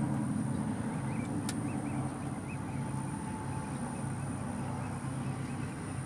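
Vehicle engine idling with a steady low hum, with one sharp click about a second and a half in and a few faint short chirps soon after.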